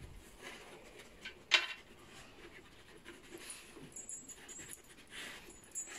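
Greyhounds sniffing and breathing at a cardboard box as they nose into it, with one short sharp knock about a second and a half in.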